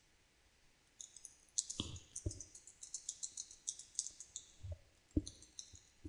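Typing on a computer keyboard: after about a second of quiet, a quick, uneven run of faint key clicks with a few heavier keystrokes among them.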